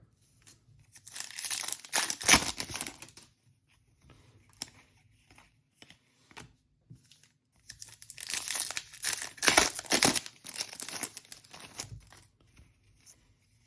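Trading-card pack wrapper being torn open and crinkled by hand, in two bouts of rustling with small clicks between.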